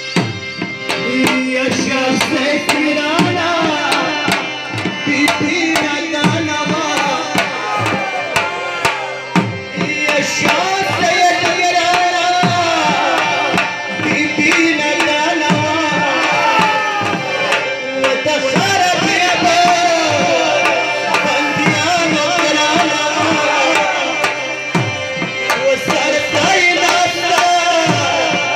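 Harmonium and dhol-type barrel drum playing Pashto saz matam devotional music: held reed chords under a bending melody, with the drum beating a steady rhythm.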